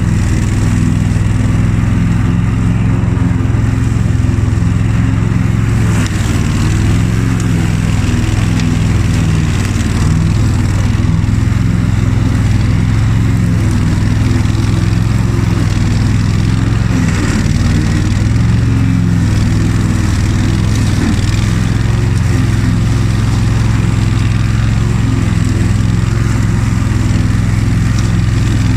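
Honda HF2622 ride-on lawn tractor running steadily while mowing tall grass, its V-twin engine and cutting deck droning loudly. The engine note sags briefly a couple of times as it takes on load.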